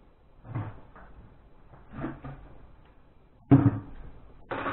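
Household handling knocks: a couple of faint bumps, then a sharp loud knock about three and a half seconds in as an orange plastic bucket is set down on the worktop, and another sharp knock a second later.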